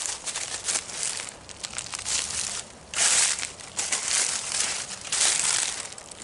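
Footsteps crunching through dry leaf litter on a forest floor, a crackling crunch with each step, about one step a second.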